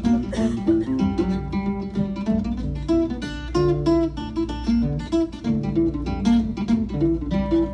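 Flatpicked lead break on an archtop guitar: a quick, steady run of single picked notes in a bluegrass style.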